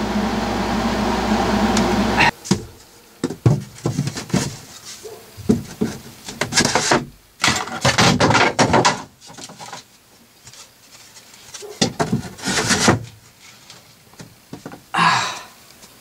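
A steady machine hum cuts off about two seconds in. After it come scattered knocks, clicks and rattles of hand tools and metal hardware being handled.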